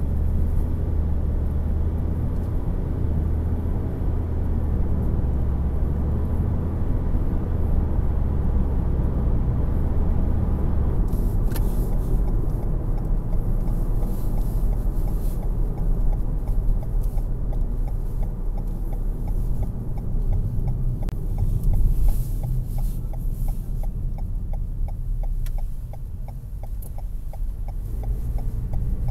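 Steady road and engine noise from inside a moving 2020 Toyota Corolla Hatchback, picked up by the windshield dash cam. The low rumble eases about eleven seconds in, and a faint regular ticking runs through the second half.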